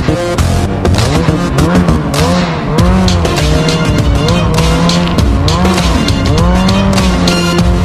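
A snowmobile engine revving up and down repeatedly while riding through snow, mixed with background music with a steady beat.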